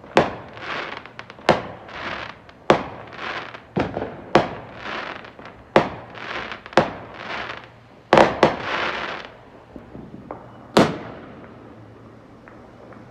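Aerial fireworks bursting overhead: a sharp bang every second or so, each trailing off over about half a second. A close double bang comes about eight seconds in, and a last loud bang near eleven seconds, after which the shots stop.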